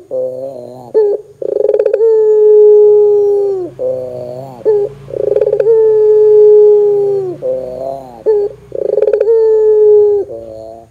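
Barbary dove (puter) cooing repeatedly: three long, steady coos of about two seconds, each dropping in pitch at the end, alternating with short wavering notes.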